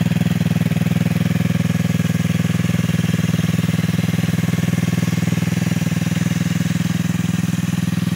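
A 125cc ATV's single-cylinder four-stroke engine idling steadily.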